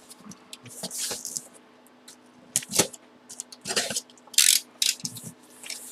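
Cardboard box being handled and turned over in the hands: scattered scrapes, rubs and knocks of fingers and palms on the cardboard, the loudest about three and four and a half seconds in.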